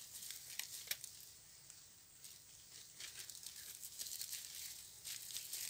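Rustling and light clicking of a wire-mesh snake trap being handled and shifted on dry leaves, in scattered irregular bursts over a faint steady high hiss.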